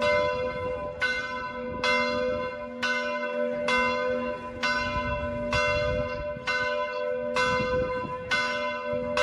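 A single church bell in a stone bell tower tolling steadily, struck about once a second, each stroke ringing on into the next.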